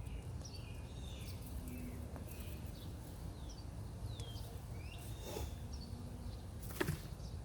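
Songbirds chirping in short, scattered calls and quick pitch glides over a steady low outdoor rumble, with one brief sharp knock near the end.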